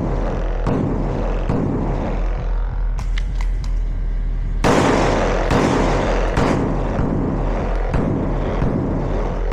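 9mm Glock 19X pistol fired in an uneven string of shots while running a competition stage, with the heaviest shots coming about halfway through.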